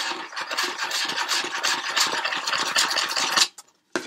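Rapid, scratchy rubbing on a clear plastic food tub, a home-made sound effect for goats chewing rubber tyres; it stops suddenly about three and a half seconds in.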